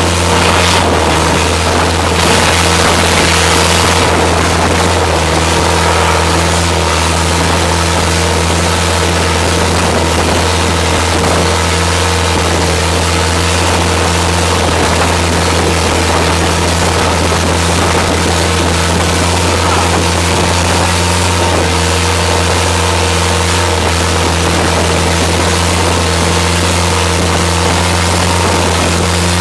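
Motorboat engine running steadily at speed, with water and spray rushing past the hull.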